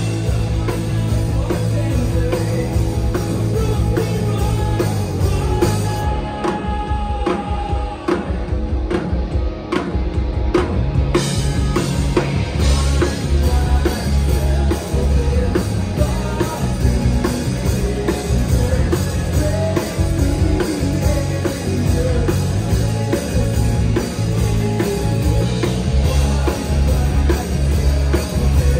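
Live rock band playing loud: drum kit, distorted electric guitars and electric bass guitar. About six seconds in, the cymbals and low end drop out for a few seconds of sparser playing, then the full band comes back in with heavy bass.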